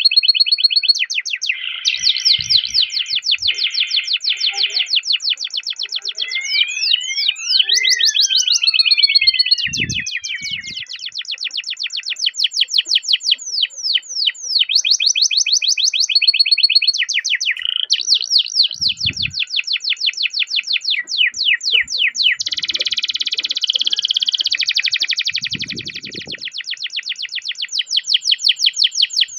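Domestic canary singing a long, fast rolled song of rapid repeated trills, broken by steady whistled notes and sweeping glides, with a few faint low knocks.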